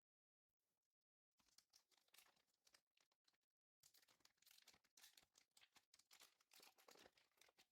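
Faint crinkling and tearing of a foil trading-card booster pack as it is torn open, in two stretches with a short break about halfway through.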